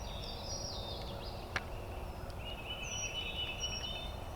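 Two bird calls, each about a second long and made of short stepped notes, one at the start and one near the three-second mark, with a single sharp click between them.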